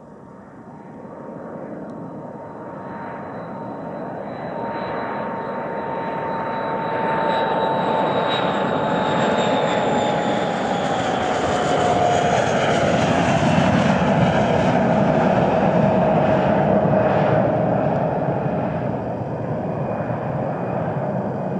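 Tupolev Tu-134UBL jet on landing approach, its two rear-mounted turbofan engines giving a broad rumbling jet noise that grows steadily louder. Over it a high engine whine slowly drops in pitch as the jet passes.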